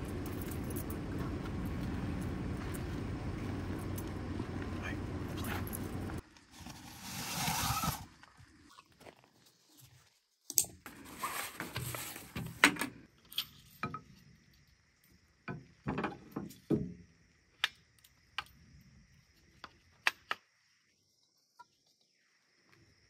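A steady low rushing noise that cuts off suddenly about six seconds in. It is followed by a short rustle, then scattered clicks, taps and metallic clinks as a walnut-framed bucksaw is taken from its bag and its frame and blade are fitted together.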